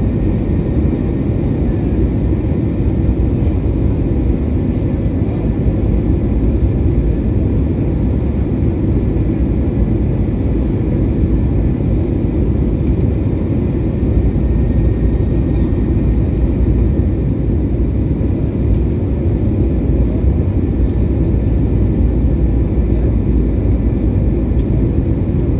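Volaris Airbus A320-family airliner landing: a steady low rumble with a few faint steady tones above it, unchanging in level.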